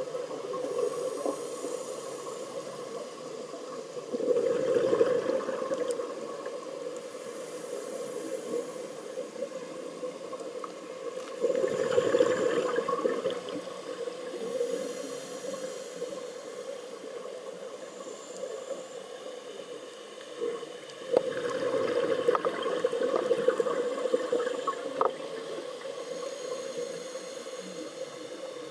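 Scuba diver breathing through a regulator underwater: three exhalations, each a rush of bubbles lasting about two seconds, with a steady hiss between breaths.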